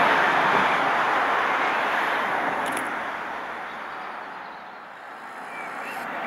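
Peppercorn A1 Pacific steam locomotive 60163 Tornado working hard under a heavy exhaust, a steady rushing roar with no separate chuffs, fading over the first few seconds and picking up again near the end.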